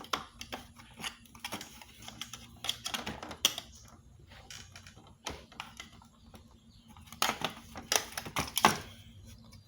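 Irregular sharp clicks and taps of hard plastic as the casing of a Miele vacuum cleaner is handled and worked apart at its pins and clips, with a louder cluster of clicks near the end.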